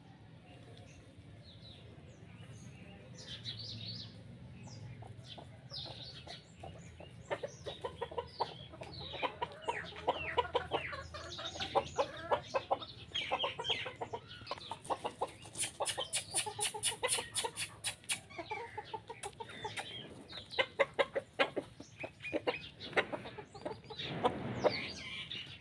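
Chickens clucking as they feed: rapid runs of short clucks, sparse at first and busier from about seven seconds in.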